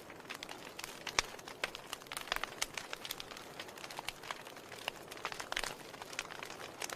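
Wood fire burning in a fireplace, crackling with irregular sharp pops and snaps over a soft steady hiss, one louder pop about a second in.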